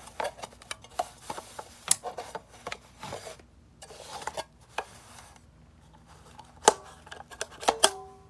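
A hard drive and a plastic drive enclosure handled by hand: scraping and rubbing with many small clicks and knocks, then a few sharp clicks near the end.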